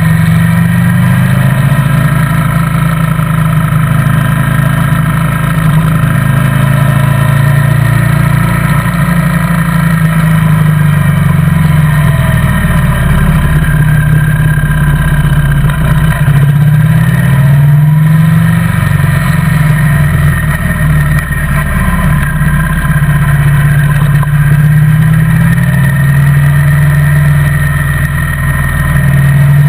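Motorcycle engine running under way, heard from the bike itself, its pitch rising and falling several times as the throttle opens and closes.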